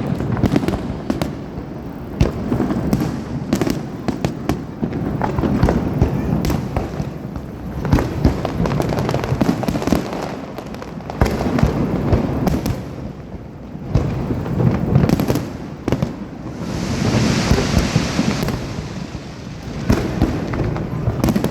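Aerial fireworks display going off: many bangs in quick succession over a low rumble, with a brief hiss about three-quarters of the way through.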